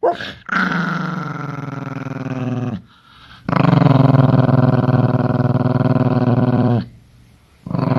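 Dog growling in three long, low, rough growls with short pauses between them, the first dropping in pitch as it begins. A short, sharp sound comes right at the start.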